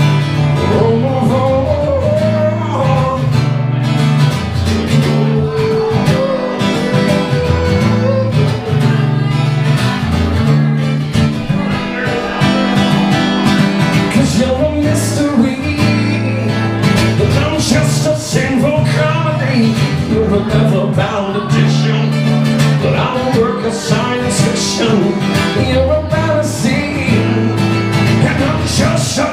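Acoustic guitar strummed steadily, with a man singing over it at times.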